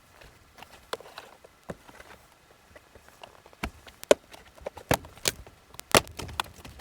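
Plastic center-console trim being pried and popped loose by hand: irregular clicks and knocks, with several louder sharp snaps in the second half.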